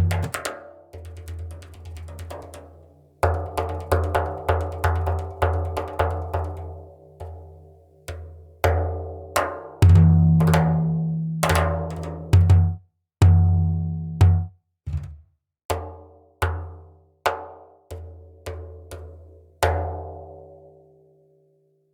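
Sampled Middle Eastern hand drum played in an irregular rhythm: deep resonant bass strokes mixed with sharper higher strikes, each ringing out. A quick flurry comes at the start, a dense run follows, then spaced single hits, the last fading away near the end.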